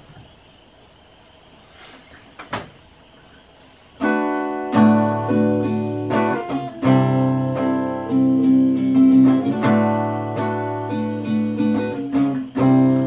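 Quiet room tone with a couple of soft knocks, then about four seconds in a steel-string acoustic guitar starts playing: picked chords that ring on one after another.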